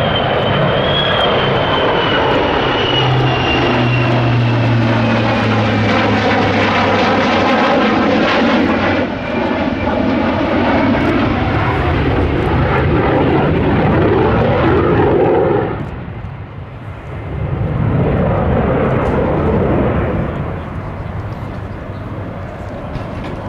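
A Lockheed C-130 Hercules and an F-35B Lightning II fly past low in close formation. A loud, steady engine drone with a high whine underneath slides down in pitch as the aircraft pass, then eases off about sixteen seconds in.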